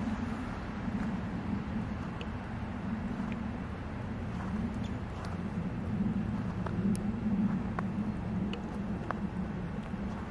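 A vehicle running: a steady low rumble that swells and eases slightly, with a few faint scattered clicks.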